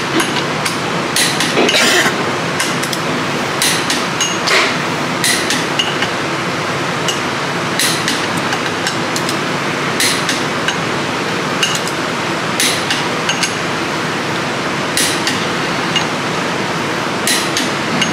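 Torque wrench on the ring-gear bolts of a 10-bolt differential carrier, worked bolt by bolt around the circle to about 65 ft-lb: a dozen or so sharp metallic clicks and clinks, often in quick pairs, one to two seconds apart.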